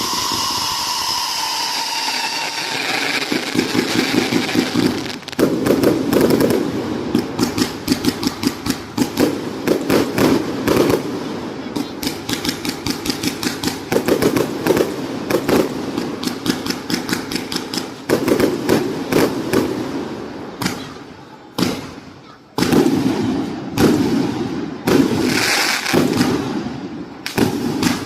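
Firework cake firing rapid volleys of shots, several cracks a second, in bursts that swell and ease again. It opens with a whistling tone that slowly falls in pitch.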